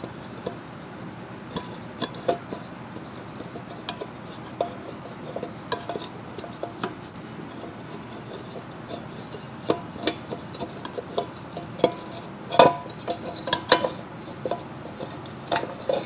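Light metallic clinks, knocks and scrapes as a motorcycle's metal magneto-side engine cover is worked loose by hand and pulled off the crankcase, with a few louder knocks about three quarters of the way through.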